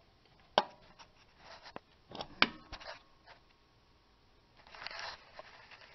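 Handling noise while working on the brake caliper by hand: two sharp clicks about two seconds apart with a few lighter taps between, and a brief scuffing about five seconds in.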